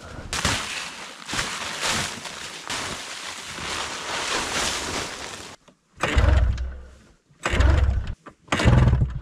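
Boots crunching through deep snow and a snow-covered plastic tarp rustling as it is dragged off a snowmobile, followed by three short, heavy low thuds near the end.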